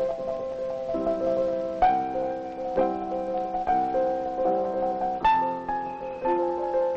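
Solo piano accompaniment: chords struck about once a second under a sustained melody line, in a steady, even rhythm.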